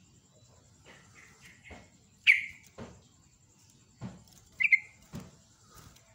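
Yellow-vented bulbul (trucuk) giving short, sharp call notes: a few faint ones about a second in, then two loud ones, about two seconds in and near five seconds. Soft low knocks fall between the calls.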